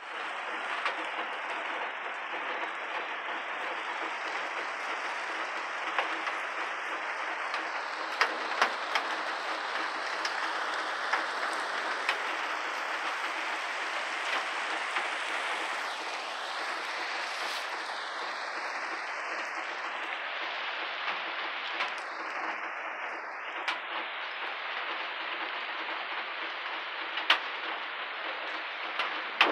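Steady rain falling, an even hiss, with a handful of sharp taps scattered through it.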